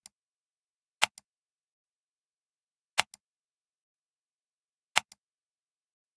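Computer mouse clicks: three sharp clicks a second or two apart, each a press followed by a fainter release click, in dead silence.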